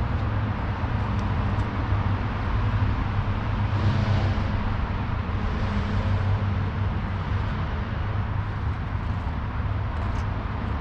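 Steady low rumble with a hiss over it, the even background noise of an open-air yard, with no distinct knocks or clicks.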